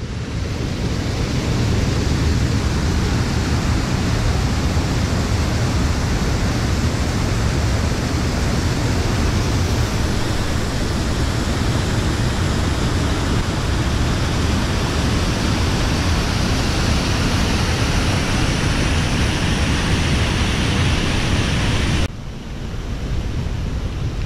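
A fast mountain stream rushing steadily, a dense hiss with a deep low rumble under it; the noise drops a little near the end.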